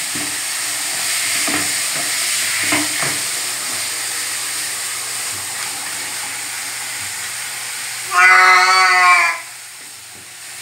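Water spraying from a handheld shower in a steady hiss. About eight seconds in, the wet cat being bathed gives one long, loud meow, and the spray stops soon after.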